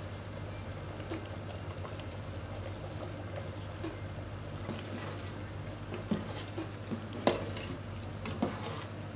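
Metal ladle stirring a pot of simmering curry in an aluminium pot, the liquid bubbling steadily over a low hum. From about halfway through come scrapes and clicks, with sharp knocks of the ladle against the pot, the loudest a little past seven seconds in.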